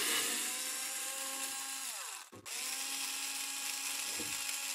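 Ryobi cordless drill-driver backing out small countersunk screws from a steel drive cage. Its motor whines steadily, winds down and stops about two seconds in, then starts again after a brief pause.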